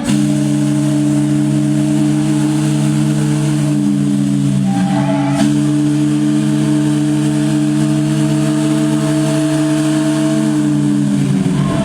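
The SS Normandie's three-bell chime steam whistle blowing one long, loud chord of several low notes held steady, fading out near the end.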